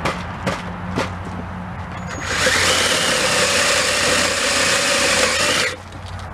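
Ryobi cordless drill boring into an aluminium piston to take weight off it for balancing. After two light clicks, the drill runs for about three seconds with a steady whine and the grinding of the bit cutting metal, then stops abruptly.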